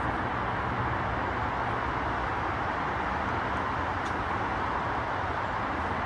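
Steady hum of distant road traffic, even and unbroken, with no calls from the birds.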